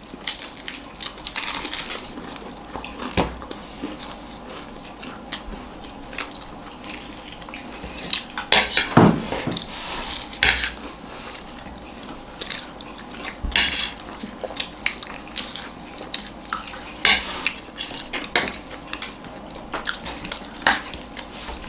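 Cutlery clinking and scraping against plates while food is eaten: irregular short clicks with a few louder clatters.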